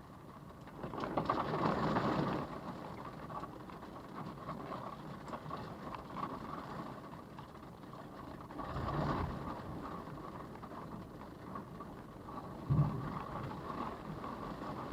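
Storm wind and rain buffeting a parked car, heard from inside through its dash camera, with two strong gusts and a single thud near the end.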